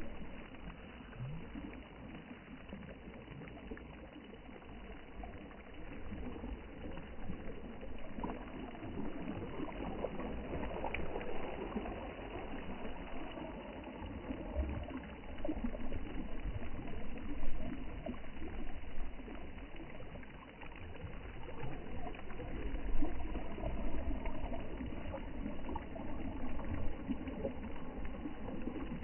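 Sea water washing and lapping, a continuous rushing with irregular swells rising and falling, joined by a low rumble.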